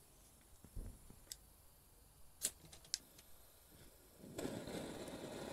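A few sharp clicks as the stove is handled, then about four seconds in an Optimus Polaris stove's burner lights on propane and burns with a steady hiss.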